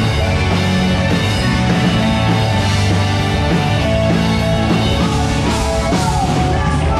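Live rock band playing through a stage PA during a soundcheck: drum kit, bass guitar, electric guitar and keyboard together, steady and loud.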